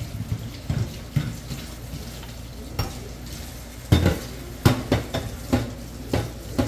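Hands mixing and rubbing flour into dough in an enamel basin, with soft scuffing and irregular knocks of hand and bowl. Two sharper knocks stand out about four seconds in.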